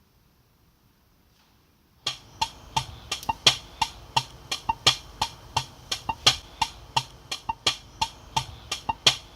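Near silence, then about two seconds in, a run of sharp percussive knocks starts, roughly three a second, some louder than others, and keeps going.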